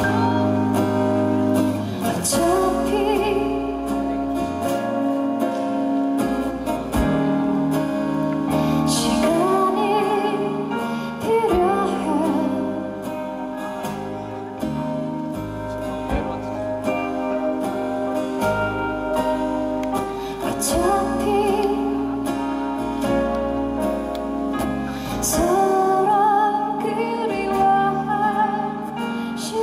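A song with guitar accompaniment and a woman singing in phrases that recur every few seconds.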